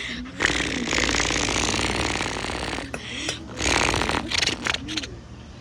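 Electric fire alarm bell ringing with a fast, harsh rattle. It breaks off about three seconds in, sounds again in two short bursts, then stops. The sprinkler alarm panel is failing and cutting the alarm in and out.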